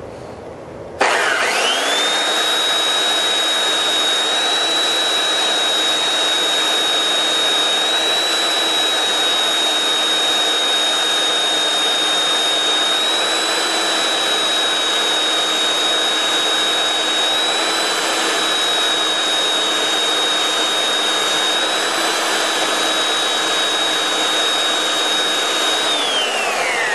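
Handheld belt sander switched on about a second in, its motor whine rising quickly to a steady high pitch as the belt grinds down the edge of quarter-inch mirror glass. The whine falls away near the end as it is switched off.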